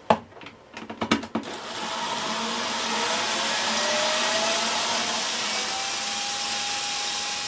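Cordless electric screwdriver with a T20 Torx bit running in reverse, backing a screw out of a vacuum cleaner's plastic casing. A couple of clicks as the bit is set on the screw, then the motor starts about a second and a half in with a steady whir; its whine rises in pitch, then holds steady.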